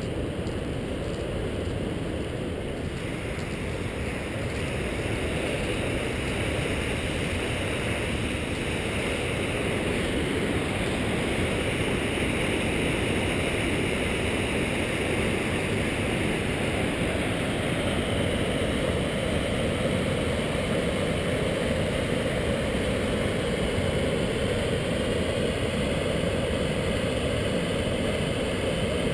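Steady rushing roar of a large waterfall, its level rising slightly a few seconds in and again around ten seconds in.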